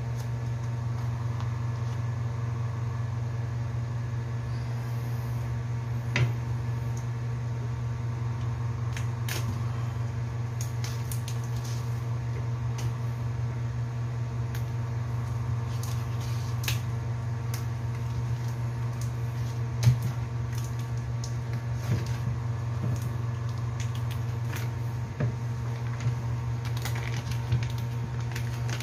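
A steady low motor hum with a row of fainter overtones runs throughout. Over it come scattered small clicks and crinkles of a plastic sausage pack being opened and handled, with a sharper tick about 6 seconds in and another about 20 seconds in.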